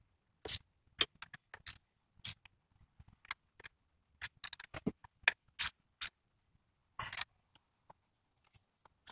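Irregular metallic clicks and clinks of a hand wrench running a 10 mm nut down onto the water pump housing stud, with a longer rough scrape about seven seconds in.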